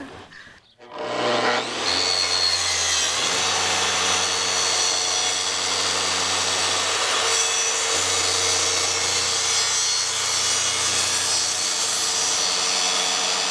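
Makita track saw (a plunge-cut circular saw on a guide rail) starts about a second in, then runs steadily while it makes a plunge inside cut through a wooden sheet panel.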